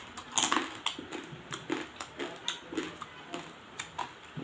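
Close-up eating of spicy cooked crab legs by hand: the shells crunch and crack between the teeth, with wet mouth sounds, in many short irregular clicks about two a second.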